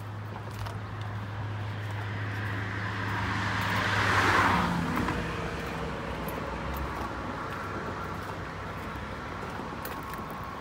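A vehicle passing on the road alongside, its tyre and engine noise swelling to its loudest about four seconds in and then fading, over steady traffic noise.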